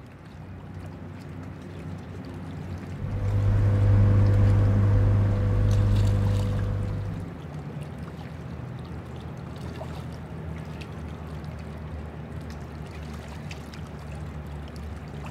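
Low, steady motorboat engine hum that swells for about four seconds, starting some three seconds in, then settles to a quieter steady drone.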